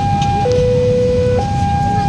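New warning siren of a railway level crossing sounding its two-tone call, switching back and forth between a high tone and a lower one, each held about a second, the signal that a train is approaching the crossing. A steady low rumble runs underneath.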